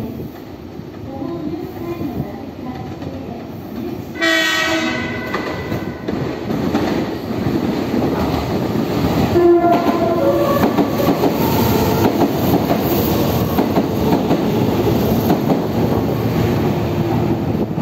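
Meitetsu 2000 series μSKY electric train sounding its horn: a sudden loud blast about four seconds in, then the music horn's stepped melody of several notes about nine seconds in. The train's rumble and wheel clatter grow louder as it draws close.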